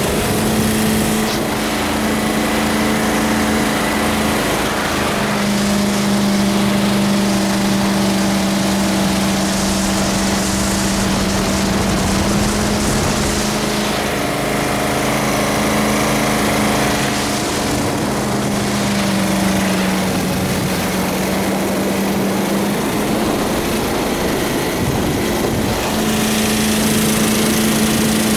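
Jet boat's 458 Chevy V8 running steadily under way, its engine note holding with small rises and dips, over the rush of water and wind.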